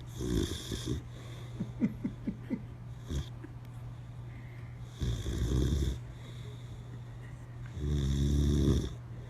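Boxer dog snoring in its sleep: a snore right at the start, a few short catches in the breath, then two longer snores, one about five seconds in and one near the end, over a steady low hum.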